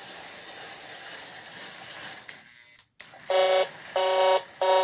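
Lionel 2-6-4 toy steam locomotive running on its track with a steady whir that cuts out about two and a half seconds in. Then its whistle gives three short toots, the three-blast signal for backing up.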